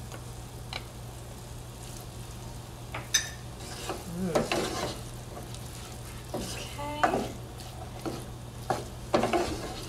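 Wooden spoon stirring and scraping chickpeas and corn in a barbecue-sauced frying pan, in irregular scrapes every couple of seconds, over a faint sizzle and a steady low hum.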